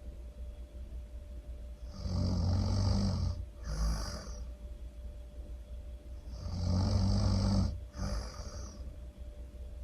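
Loud snoring: two slow breaths, each a long snore followed by a shorter breath out.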